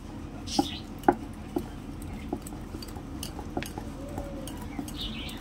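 Wire whisk stirring thick chocolate batter in a glass bowl, with light, irregular clinks of the wires against the glass.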